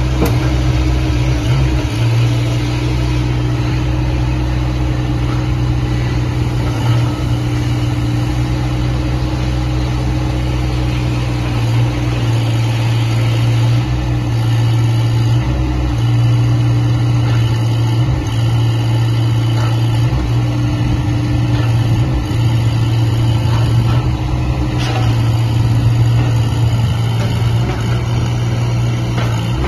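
Small mini excavator engine running steadily, with brief small dips and rises in load.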